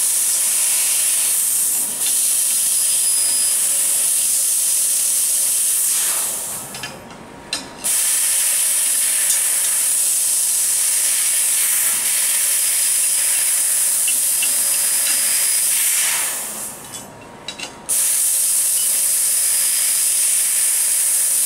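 Bodor T6A fiber laser tube cutter cutting square carbon-steel tube: a steady, loud hiss of assist gas jetting from the cutting head. The hiss fades out twice, about six and sixteen seconds in, and snaps back on about two seconds later each time.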